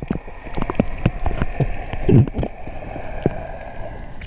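Underwater sound picked up by an action camera during a freedive. Irregular sharp clicks and crackles run over a steady hum, and there is a short bubbling gurgle about two seconds in.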